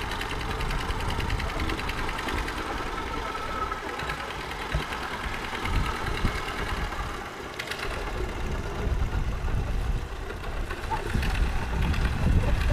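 Wooden pompong boat's engine running at low speed with a fast, even beat as the boat manoeuvres to park. It eases off briefly about halfway and grows louder near the end.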